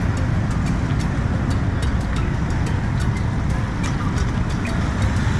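Steady road traffic noise from passing motor vehicles, a continuous low rumble with light ticks scattered through it.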